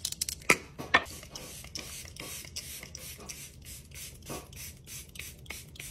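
Makeup setting spray pump bottle spritzed at the face over and over, a quick run of short hissing puffs, several a second. There are a couple of sharper clicks in the first second.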